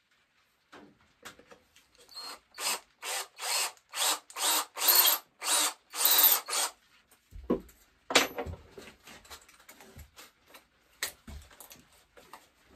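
Cordless drill run in short trigger bursts, about two a second, boring the spout hole into the solid tip of a powder horn. A knock and some small clicks of handling follow near the end.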